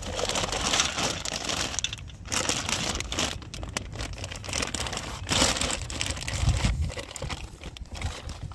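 Thin plastic bag crinkling and rustling in irregular bursts as it is handled.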